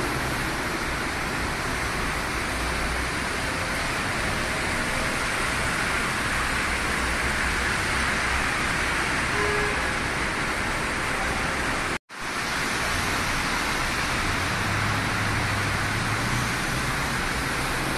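Heavy rain pelting a moving car and its tyres hissing on the flooded road, heard from inside the cabin as a steady noise. The sound cuts out for a split second about twelve seconds in.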